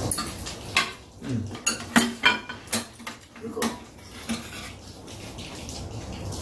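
Metal spoons and chopsticks clinking against bowls and a metal serving tray while eating, a string of short sharp clinks that thins out after about four seconds.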